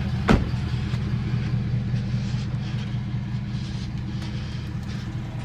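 An engine running steadily at low speed, with one sharp metallic clank about a third of a second in.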